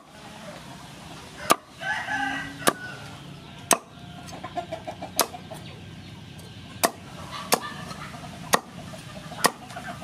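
Cleaver chopping through crispy fried pork belly onto a wooden cutting board: about eight sharp chops, roughly one a second. Chickens crow and cluck in the background, most clearly about two seconds in.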